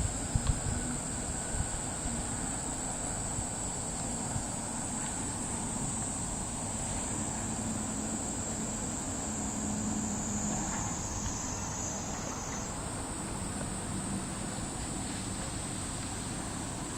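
A steady, high-pitched insect chorus buzzes throughout. It sags slightly in pitch a little after ten seconds in and jumps back up just before thirteen seconds. There are a few soft knocks in the first second.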